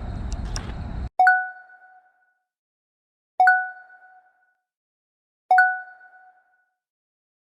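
A steady rumble that cuts off abruptly about a second in, followed by an electronic ding repeating three times, about two seconds apart, each a clear two-note tone that dies away within a second.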